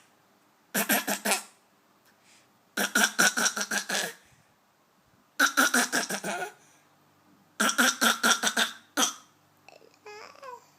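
A toddler boy doing a mock grown-up cough, clearing his throat in four bursts of rapid pulses about two seconds apart, then a short fifth one and a softer voice sound near the end.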